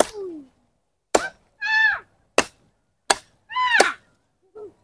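A katari (curved chopping knife) hacking into a dry fallen branch: about five sharp chops, roughly one a second. Two short high-pitched calls sound between the strokes.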